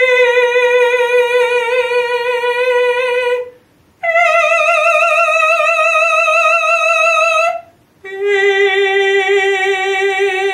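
A woman singing three long held notes with vibrato on an 'E' vowel, two fingers placed between her teeth to keep the jaw open: a middle note, a higher one about four seconds in, then a lower one about eight seconds in.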